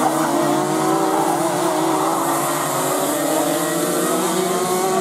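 A pack of racing go-karts running on the circuit: several kart engines at once, each at its own pitch, rising and falling as they work through the corner.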